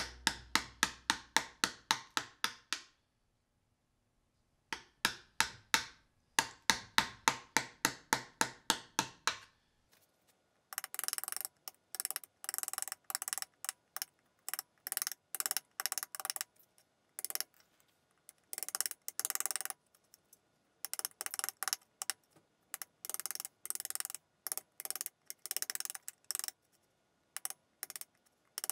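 Chisel work in a hardwood mallet head: two runs of rapid, evenly spaced light taps driving the chisel in, with a short pause between. From about ten seconds in come irregular short rasps as the chisel pares and shaves wood from the dovetail socket.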